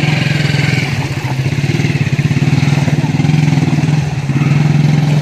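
A small motorcycle-type engine running steadily close by: an even low drone made of rapid, regular firing pulses.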